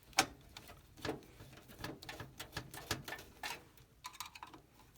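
Irregular small clicks and ticks, a few a second, from a screwdriver tightening the mounting screws of a CPU heatsink, the sharpest click just after the start.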